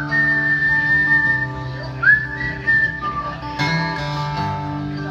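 Acoustic guitar strumming chords, with a man whistling a melody over it into the microphone. The whistle holds long notes and slides up into them.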